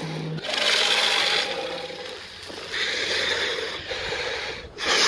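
Tyrannosaurus rex roar sound effects for an animated dinosaur: three noisy roars, each about a second long, the last one short and near the end.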